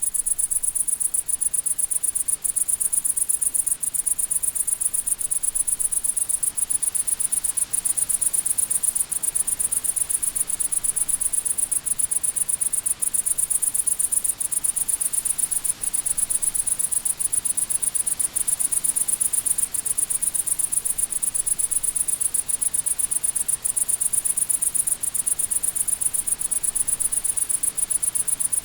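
Crickets chirping in a dense, steady, high-pitched trill that cuts in suddenly out of near silence.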